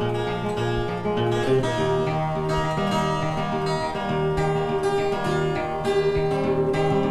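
Background music: acoustic guitar, strummed and plucked, with steady held notes.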